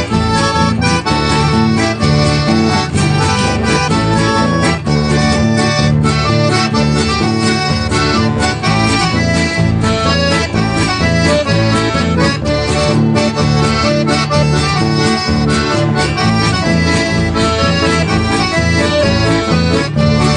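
Accordion-led instrumental folk music with guitar and bass accompaniment, played at a steady beat.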